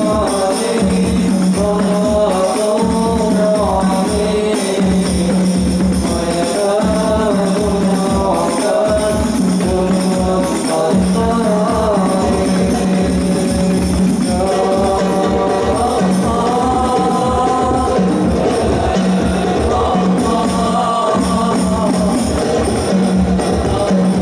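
Men's voices singing sholawat, Islamic devotional songs in praise of the Prophet, into amplified microphones, over a steady rhythmic percussion accompaniment.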